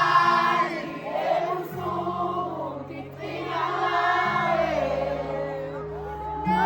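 Music with several voices singing together over held low chords that change every second or two.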